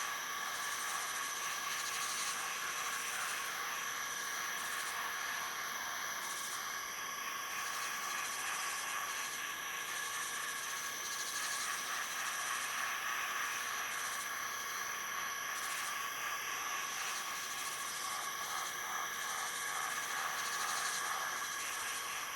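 Tropical rainforest ambience: a dense chorus of insects, with several steady high-pitched drones layered over a hiss and pulsing trills that come and go.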